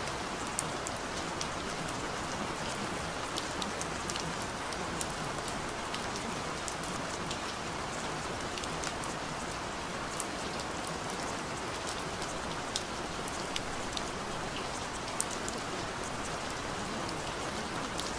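Steady rain falling, a continuous hiss with scattered sharper ticks of individual drops.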